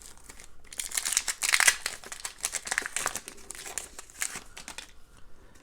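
Plastic wrapper of a hockey card pack being torn open and crinkled.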